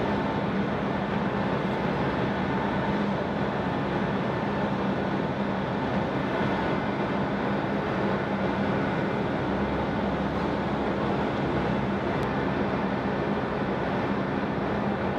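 Steady drone of dockside machinery with a constant low hum, unchanging throughout.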